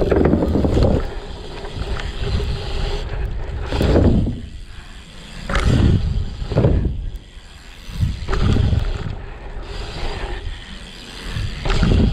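BMX tyres rolling over a packed dirt track, with wind rushing across the action-camera microphone. The rumble swells and fades every couple of seconds as the bike speeds down the jump line.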